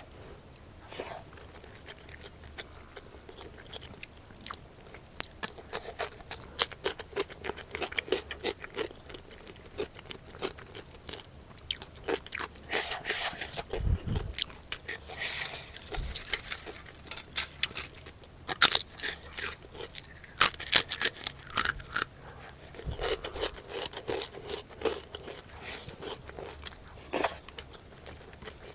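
Close-miked chewing and crunching of a meal of fish curry, rice, papad and salad. Continual small wet chewing clicks, with clusters of louder crisp crunches, the loudest about 19 to 22 seconds in.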